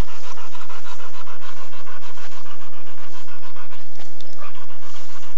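Rottweiler panting rapidly and evenly, about five pants a second.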